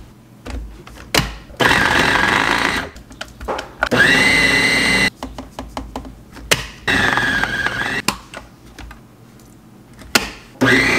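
Small electric baby food processor blending cream cheese, butter and coconut sugar for frosting. The motor runs in four short pulses of about a second each, one of them spinning up into a steady whine, and the last starts near the end. There are light knocks and clicks between the pulses.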